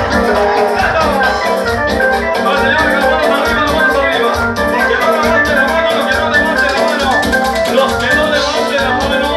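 Latin dance music playing loud, with a steady beat and a shaker rattling in time.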